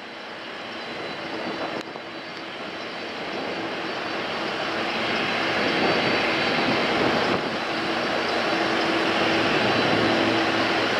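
Boeing 747-400 freighter's four turbofan engines running as the jet rolls along the runway: a broad rushing jet noise with a steady hum under it, growing louder over the first several seconds and then holding.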